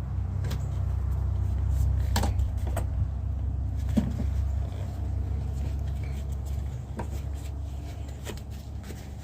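Tractor engine running as a steady low rumble that eases a little partway through, with a few sharp clicks and knocks from work on the machine.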